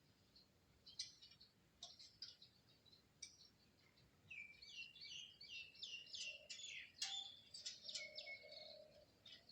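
A small songbird singing faintly: a few scattered high chirps, then about four seconds in, a quick run of short, repeated downward-sweeping notes.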